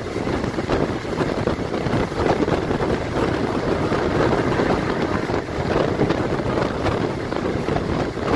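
Passenger train running steadily, heard from an open carriage window: continuous rumble of wheels on the rails with wind buffeting the microphone.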